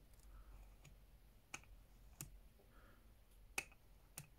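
Zoom ring of an SVBONY SV215 3–8 mm planetary zoom eyepiece turned by hand, giving a crisp detent click at each 1 mm focal-length step. About five separate clicks, the loudest about three and a half seconds in.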